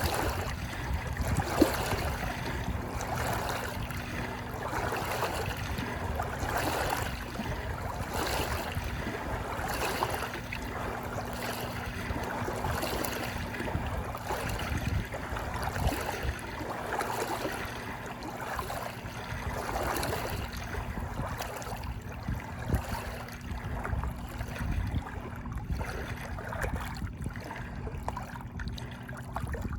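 Moving water, lapping and splashing in repeated small surges every second or two over a steady wash.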